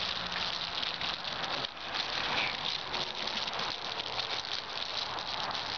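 Small plastic bag crinkling and rustling in a dense run of crackles as it is handled and opened by hand.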